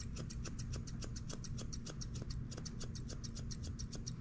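Grooming scissors snipping quickly through a Shih Tzu puppy's hair, an even run of short sharp snips about eight a second, over a steady low hum.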